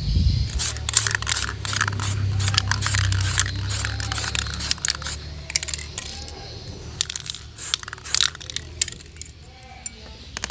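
Small metal parts clinking and rattling in a quick irregular run of sharp clicks, with a low hum underneath that fades away about halfway through.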